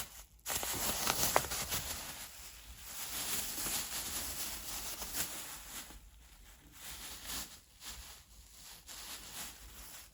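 Thin plastic bag rustling and crinkling as a kitten plays with it, starting abruptly about half a second in and loudest for the first few seconds, then fainter and on and off.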